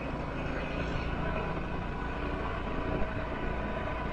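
Motor scooter riding along a road: a steady mix of engine and wind and road noise, with a faint steady whine and a brief knock about three seconds in.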